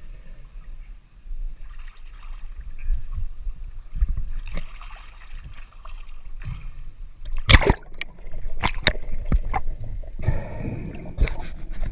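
Sea water sloshing and splashing against a camera held at the waterline, with a few sharp splashes a little past the middle.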